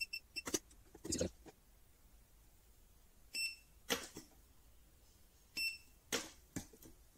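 Cheap battery spot welder firing pulses through a handheld pen electrode onto 0.4 mm nickel strip: three short beeps, each followed about half a second later by the sharp snap of a weld, with a few faint clicks between.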